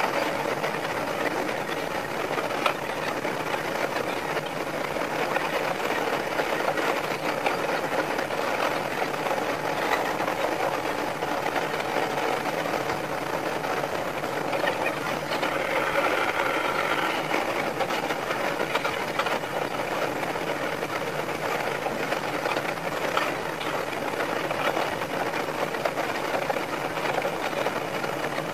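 Sanriku Railway 36-200 series diesel railcar running along the line, its engine and wheel noise played back five times fast, so it comes out as a steady, fast rattling chatter. A higher whine joins for a couple of seconds past the middle.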